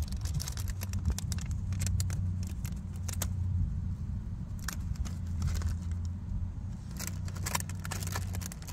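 Plastic trash bags crinkling and rustling in irregular crackly bursts as an opossum roots through them, busiest near the end. A steady low hum runs underneath.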